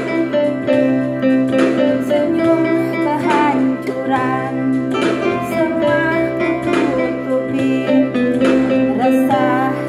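An electronic keyboard playing a song with sustained chords and a plucked, guitar-like accompaniment, with a voice singing a wavering melody along with it.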